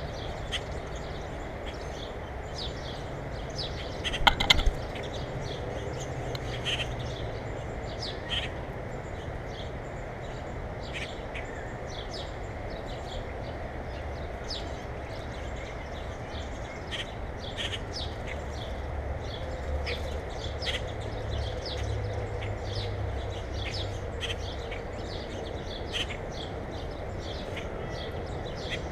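Wild birds chirping with many short, high calls scattered throughout, over a steady low rumble. About four seconds in, a quick cluster of sharp knocks stands out as the loudest sound.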